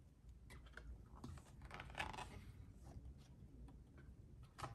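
Faint taps and rustles of a thick cardboard board book being handled as its pages are turned, with a sharper tap near the end.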